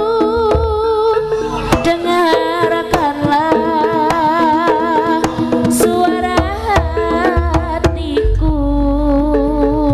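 Live East Javanese jaranan music: a wavering melody with strong vibrato, in the manner of a slompret reed trumpet, over kendang hand-drum strokes. A deep low boom joins about eight seconds in.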